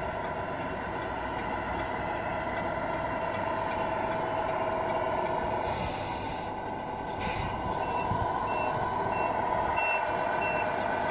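Tamiya Scania R470 RC truck's sound unit playing a steady diesel engine sound, with two short air hisses about six and seven seconds in. Near the end a reversing beeper sounds about five times, roughly every half second.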